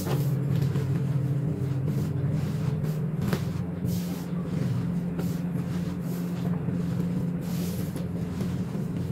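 Gym chalk and corn starch being crushed by hand, sped up: a run of irregular soft crunches and crackles over a steady low hum.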